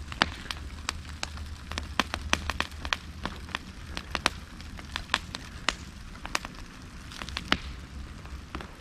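Open burn pile of garbage, scrap boards, cardboard and paper, crackling with many sharp, irregular pops over a low steady rumble.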